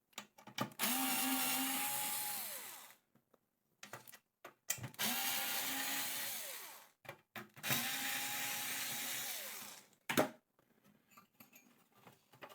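Small electric screwdriver motor undoing screws in three runs of about two seconds each, spinning at a steady pitch and winding down at the end of each run, with light clicks in between.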